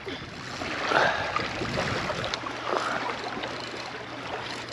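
Wind on an open lakeshore and small waves lapping at the bank, rising and falling in two gentle swells.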